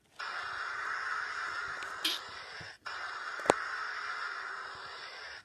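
Cartoon sound effect of a jet airliner's engines, a steady rushing noise coming through a screen's small speaker. It breaks off briefly about halfway, and there is a sharp click a little later.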